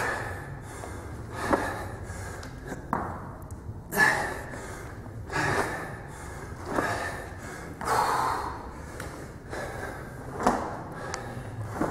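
A man breathing hard from exertion, with a sharp, forced breath out on each sandbag rep, about one every second and a half.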